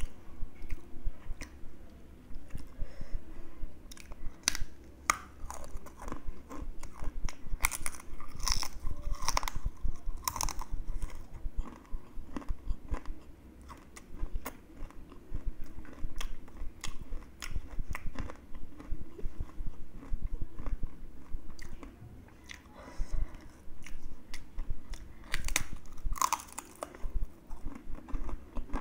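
A person biting into and chewing crispy spiced fried chips, a dense run of sharp crunches and crackles with a few short pauses between bites.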